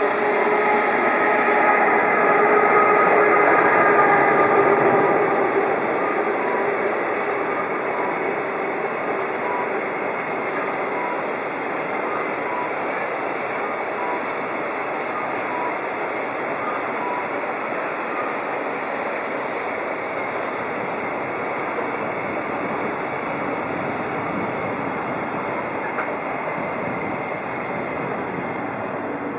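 JR Freight EF510 electric locomotive passing, with a loud noise carrying several steady hum tones, followed by a long train of container wagons rolling by with a steady rolling noise that drops as the last wagons clear.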